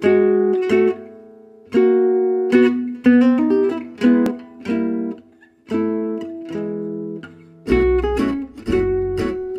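Background music: an acoustic guitar plucking separate notes in short phrases, with a deep bass coming in near the end.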